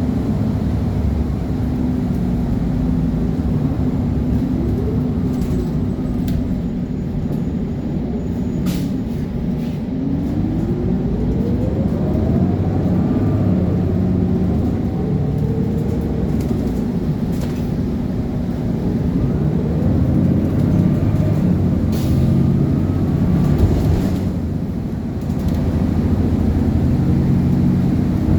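Diesel transit bus engine running under load, its pitch rising and dropping several times as it accelerates through the automatic transmission's gear changes, with a few sharp clicks or hisses along the way.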